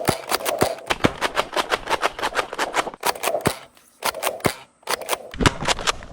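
Gel blasters firing in a rapid run of sharp snapping shots, several a second, with two short breaks a little past halfway.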